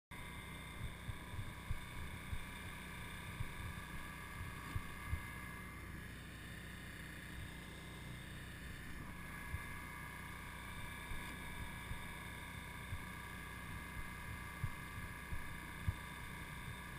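Electrofishing boat running with a steady mechanical hum, with irregular low thumps on the microphone throughout.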